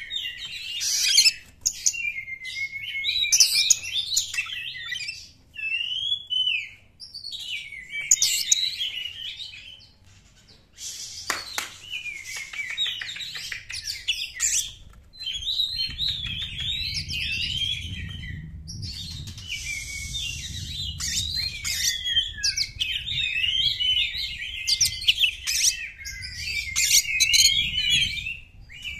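Oriental magpie-robin singing a varied song of whistled glides, fast warbles and chirps in phrases broken by short pauses. A low rumble runs underneath through the second half.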